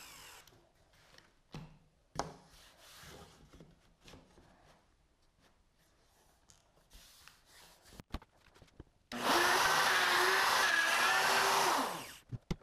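Plunge router cutting a stop dado in an oak board: a loud steady whine for about three seconds near the end, which drops in pitch as the motor is switched off and spins down. Before it, light knocks and rubbing as the board and router are handled.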